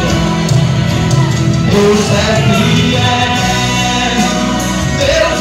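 Live gospel song played loud: backing music with a man singing into a microphone.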